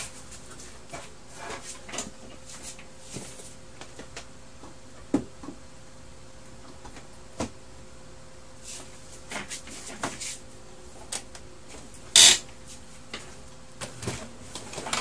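Scattered light clicks and knocks of plastic laser-printer parts being handled by hand, with one louder, sharp clatter about twelve seconds in, over a faint steady hum.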